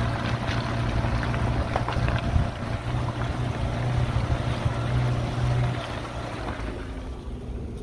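Small 4x4 SUV driving slowly along a rocky dirt track: a steady low engine drone under tyre noise on gravel, with scattered crackles and wind rushing over an outside-mounted microphone.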